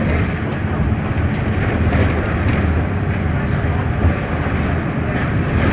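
VDL Citea 12m city bus heard from inside while driving: a steady low engine and road rumble, with light rattles.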